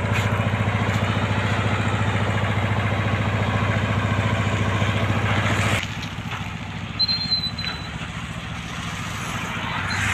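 A small engine running steadily at idle close by, with an even low throb, cutting off abruptly about six seconds in. After it, a quieter outdoor background with one brief high chirp.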